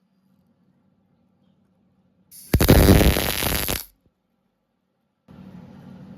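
Welding arc crackling in a single burst of about a second and a half, between stretches of silence. A steady low hum starts near the end.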